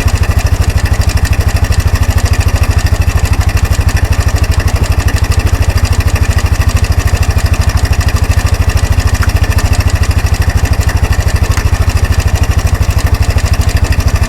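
Kawasaki 300 4x4 ATV's single-cylinder four-stroke engine idling steadily with an even, rapid beat, its air filter cover off.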